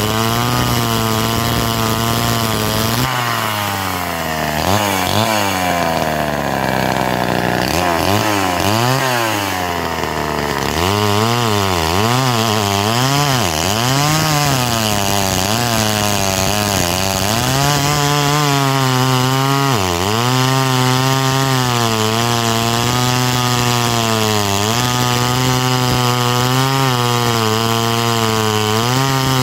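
Homelite C-5 two-stroke chainsaw cutting through a large log under load. A few seconds in, the engine note swings up and down repeatedly for a stretch. It then settles into a steady pull through the wood, with brief dips as the chain bites.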